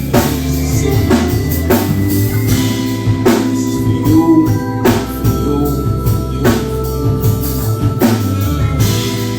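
Live band playing an instrumental passage with no vocals: a drum kit keeps a steady beat under bass and held keyboard chords.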